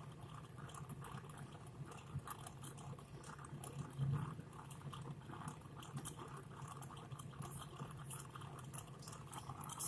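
Faint crackling and small clicks over a low steady hum, with a soft knock about four seconds in: light bench work with a soldering iron, desoldering the two speaker wires from a walkie-talkie.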